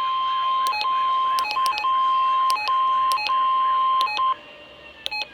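NOAA Weather Radio 1050 Hz warning alarm tone sounding as a steady high beep, broken several times by short lower blips and clicks, and cutting off a little over four seconds in.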